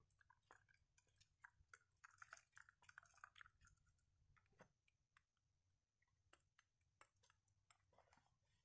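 Faint clicks and light rustling of small plastic baubles being handled and tied onto a tree of split wood, densest in the first half.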